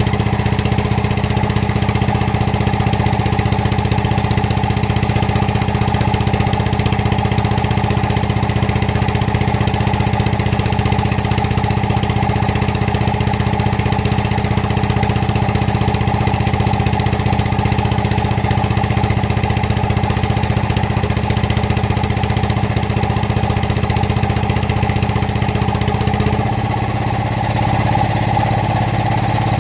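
Excavator's diesel engine running steadily. A little over 26 seconds in its note changes suddenly and the deepest part of the sound thins out.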